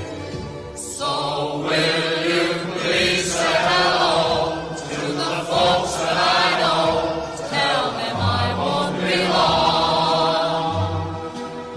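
Music: sung vocals with a strong vibrato, choir-like, over a low bass accompaniment, starting about a second in after a brief dip.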